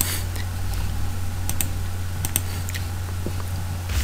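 Sharp clicks from a computer mouse, scattered irregularly and some in quick pairs, over a steady low hum.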